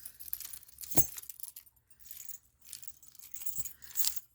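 Metal bangle bracelets clinking and jangling against one another as they are gathered up by hand, with a sharp clink about a second in and another cluster of clinks near the end.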